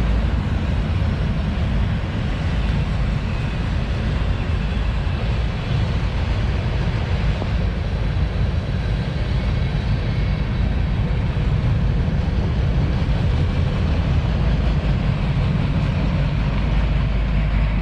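Freight train rolling past, a steady low rumble of cars on the rails.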